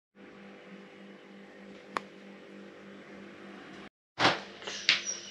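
A steady low hum with several held tones, like a household appliance running, with a single sharp click about two seconds in. Near the end come loud rustling bursts and knocks, then a brief high ringing note.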